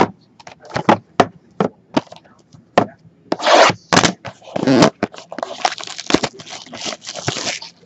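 Trading cards clicking and tapping as they are handled and set down, then longer stretches of rustling and scraping as a 2016 Topps Tier One box is opened.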